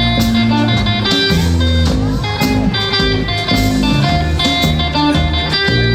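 Live band music during an instrumental guitar solo, played over a bass line and a steady beat.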